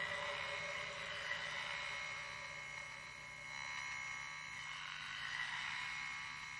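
Experimental electronic drone music: a hissing wash with many thin, steady high tones layered together, dipping a little in the middle and swelling again.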